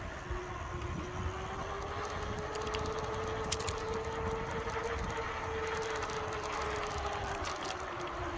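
Lectric e-bike's hub motor whining steadily under power, its pitch rising about a second in and easing back down near the end as the bike's speed changes, over a low rumble.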